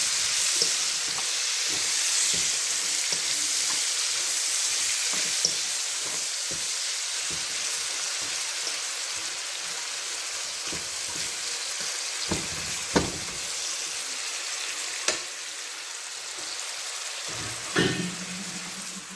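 Chopped onion, scallion, tomato, garlic and bell pepper frying in hot oil in a pot: a steady sizzle that eases a little over time. A few sharp knocks come in the second half, near the end.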